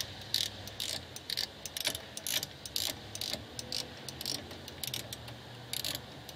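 Ratchet wrench clicking in quick, uneven runs as it is swung back and forth, running the front brake caliper bolts down snug.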